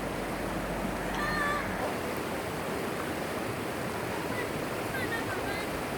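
Mountain valley stream rushing steadily, an even wash of water noise, with a few faint short high chirps over it.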